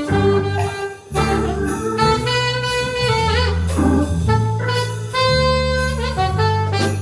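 Live jazz band playing an instrumental tune, a melody line of held notes over a sustained bass line.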